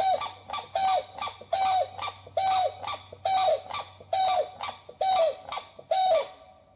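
A large bird calling: a series of eight loud, harsh honking calls, a little under a second apart, each ending in a falling note.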